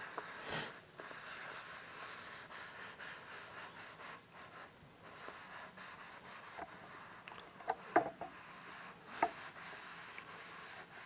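Soapy sponge scrubbing a stainless steel sink: steady wet rubbing through the foam, with a few short, sharper sounds about eight and nine seconds in.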